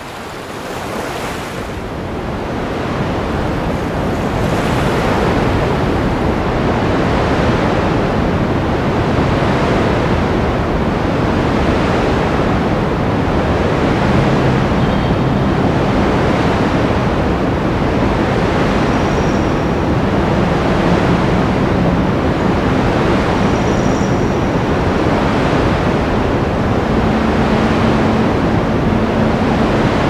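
Sea waves washing and breaking on the shore, with wind on the microphone. It fades in over the first few seconds, then holds steady and loud.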